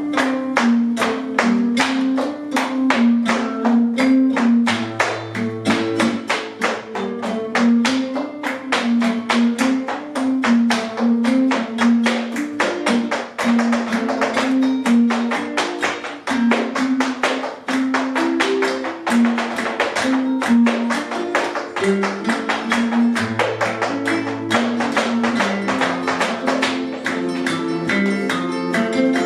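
Flamenco caña played live on guitars: a stepping melody and bass line under a fast, even stream of sharp percussive strikes from the flamenco percussion.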